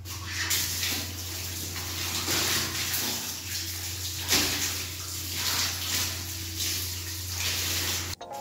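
Running water splashing onto feet and a tiled bathroom floor as the feet are washed, surging and easing in strength, then cutting off abruptly near the end.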